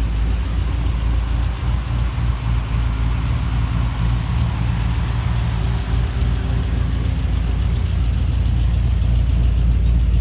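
Holden Commodore SSV's 6.2-litre V8, fitted with a performance camshaft and extractors, idling with a steady low rumble.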